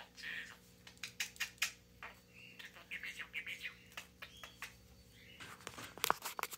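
Budgerigar chattering: soft chirpy warbles mixed with rapid clicking sounds, with a busy run of clicks near the end.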